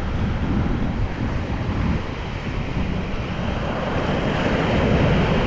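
Ocean surf breaking and washing up a beach, with wind buffeting the microphone as a low rumble; a wave grows louder about four seconds in.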